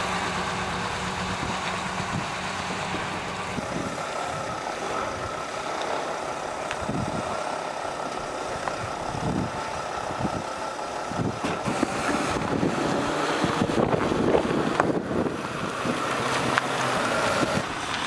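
Diesel engine of a truck-mounted mobile crane running steadily, with other vehicle sounds coming and going in the second half.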